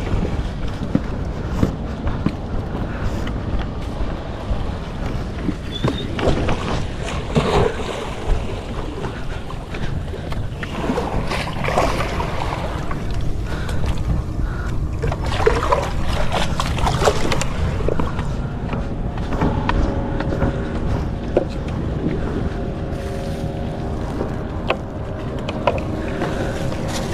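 Wind rumbling on the microphone over the sea, with water splashing and sloshing as a small bucket is dipped into the sea and filled, about halfway through. A steady low motor hum comes in during the last several seconds.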